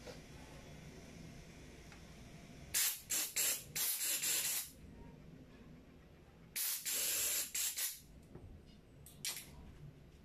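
Compressed air blown in bursts from an air nozzle to clear carburetor parts during cleaning: a few short blasts and a longer one, a blast of just over a second a few seconds later, then two brief puffs near the end.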